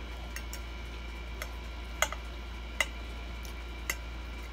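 Utensil clinking lightly against a dish while eating, about eight irregular taps with a brief ring, the loudest about two seconds in.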